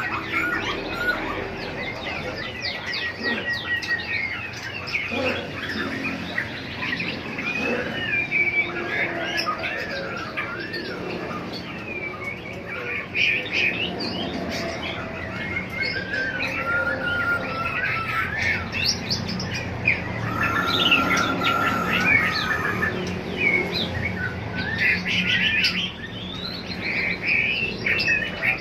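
Many caged songbirds chirping and calling at once, a dense, continuous chorus of overlapping short chirps and whistles.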